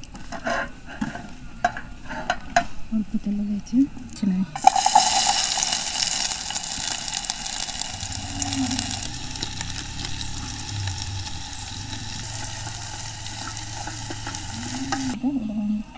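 Sliced onions dropped into hot oil in a camping cook pot, sizzling loudly as they fry and are stirred with a wooden spatula. The sizzle starts suddenly about a third of the way in, strongest at first, and stops abruptly near the end; before it come a few light clicks and knocks.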